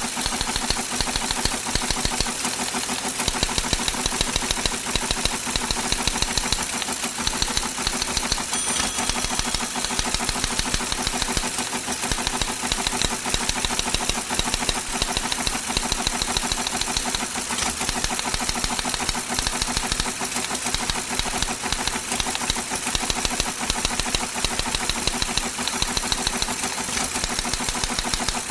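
Teletype machine printing: a rapid, steady mechanical clatter of type strikes that runs on without a pause.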